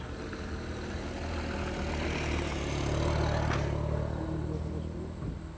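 A motor vehicle's engine passing by, growing louder to a peak a little after three seconds in and then fading away, with one short knock at about the loudest point.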